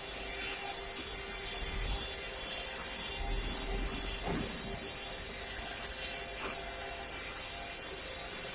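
Mini CNC carving machine running: a steady high hiss with a constant hum underneath, unchanging throughout.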